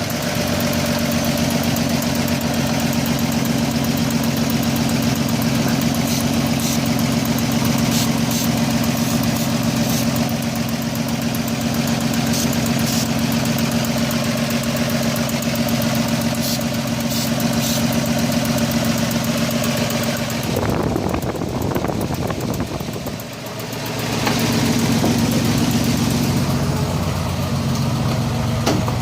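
Car engine idling with a steady note. About two-thirds of the way through, the note breaks up and dips for a few seconds, then settles back to a steady idle. The owner suspects a vacuum leak.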